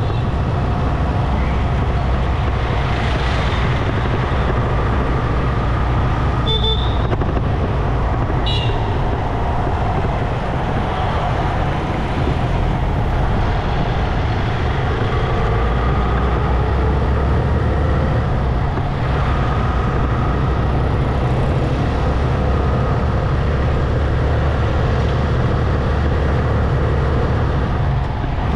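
Motorcycle riding through city traffic: steady engine and road noise with other vehicles around, and two short high horn toots about a third of the way in.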